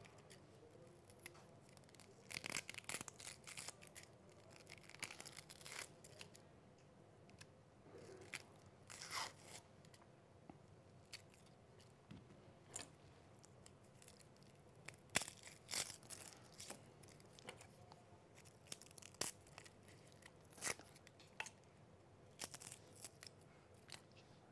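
Faint, scattered crackles and scrapes of dry onion and garlic skins being torn and scraped off with a kitchen knife.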